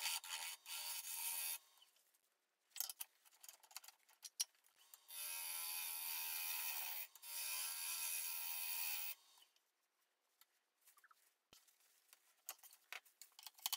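Turning tool cutting a spinning spalted ash bowl blank on a wood lathe: short scraping bursts at first, then two steady cuts of about two seconds each around the middle. Scattered light clicks and knocks follow.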